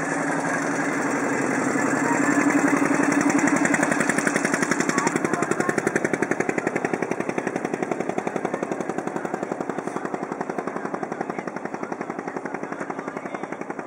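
Motorboat engine chugging in rapid, even beats, loudest a few seconds in and then slowly fading.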